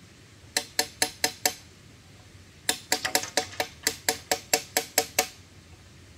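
Hammer blows ringing on metal, in two runs at about four strikes a second: five quick blows, a pause of about a second, then about a dozen more.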